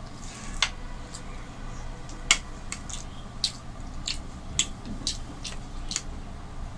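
Steel spoon clinking against ceramic curry bowls and plates as fish curry is served, about ten sharp, irregular clinks, with soft squelching of rice being mixed by hand in between.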